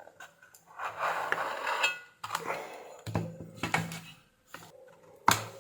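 Handling noises on a workbench. About a second in there is a scraping rustle, followed by several light clicks and knocks, and the sharpest click comes near the end.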